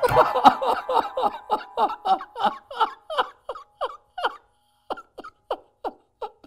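A man's voice in a run of short gasping bursts, each falling in pitch, about three a second, fading and slowing toward the end. A piano note rings on faintly underneath for the first four seconds or so, then dies away.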